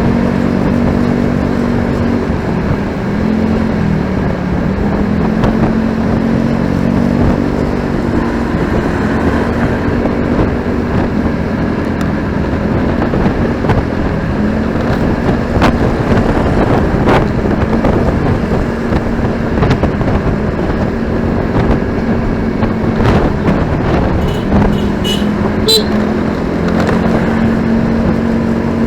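Motorcycle engine running steadily while riding in traffic, under heavy wind and road noise, its note dipping and picking up again a few times. A few short, sharp sounds stand out in the second half.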